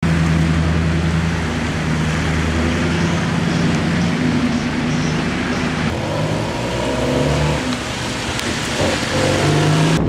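Vehicle engines running on a rain-soaked street over a steady hiss of wind and rain, with the engine hum changing partway through.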